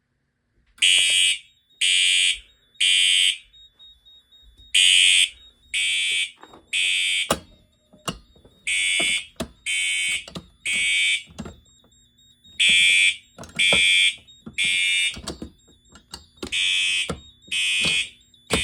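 Fire alarm sounding the temporal-3 evacuation pattern: three loud beeps about a second apart, then a longer gap, repeating every four seconds or so. A few faint clicks fall between the groups.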